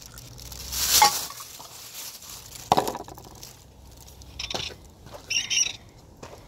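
A cat eating from a plastic food dish: scattered crunches and clinks from the dish, the sharpest click about three seconds in. A brief high chirp a little past five seconds.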